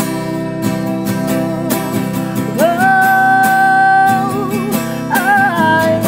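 Acoustic guitar strummed as accompaniment to singing. A long held sung note starts about two and a half seconds in, and the singing picks up again near the end.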